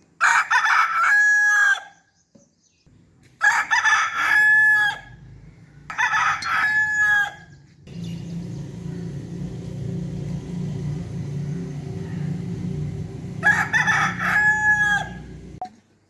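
Rooster crowing four times, each cock-a-doodle-doo ending in a long held note. The first three crows come about every three seconds, and the fourth comes after a longer gap near the end. From about halfway a steady low hum runs underneath.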